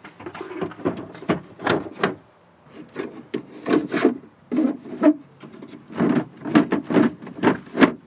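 Hard plastic center-console parts being fitted together by hand: an irregular run of knocks, clacks and scraping as the inner tray is worked down into the console housing.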